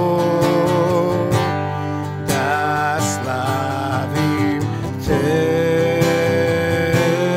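A man sings long held notes over a strummed acoustic guitar, with a new sustained note starting about five seconds in.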